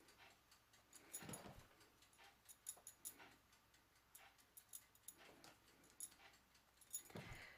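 Near silence with faint scattered clicks and a couple of soft thumps from hands handling a small caulk tube against a plastic cooler lid.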